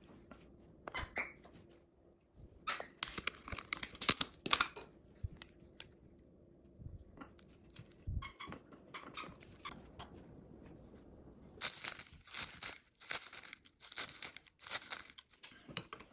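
Thin plastic food containers being opened and handled, crackling and crinkling in several short bouts. The longest and loudest bout comes in the last few seconds, with tongs working inside a plastic tub.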